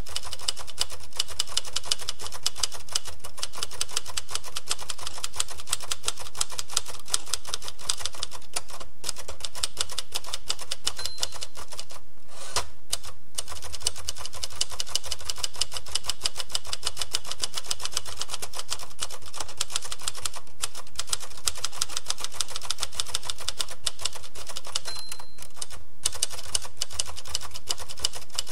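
Typewriter keys striking in a rapid, steady run of typing, with a few brief pauses, one of them about halfway through.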